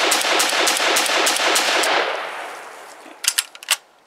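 Hill & Mac Gunworks CETME-L roller-delayed 5.56 NATO rifle fired in a rapid semi-automatic string, about five shots a second. The string stops about two seconds in, and the echo dies away. A few sharp clicks follow near the end.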